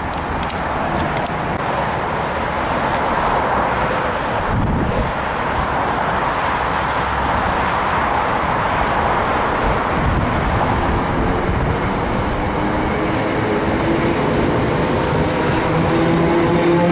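Class 319 electric multiple unit moving along a station platform: a steady rumble of wheels and running gear, with a hum that rises slightly in pitch near the end.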